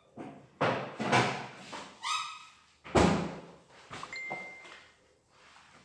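A string of knocks and bumps from things being handled and set down around a table, with a short squeak about two seconds in and the sharpest knock about a second later.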